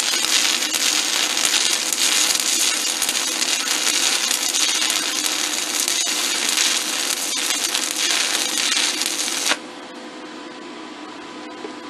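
Stick-welding arc of a 5/32-inch E7018 electrode fed by a SanRex SanStick 160S inverter: a steady crackling hiss that stops abruptly about nine and a half seconds in as the arc is broken, leaving a low hum.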